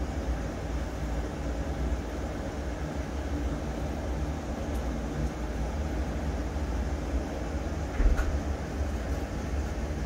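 Steady low outdoor rumble, with a brief thump about eight seconds in.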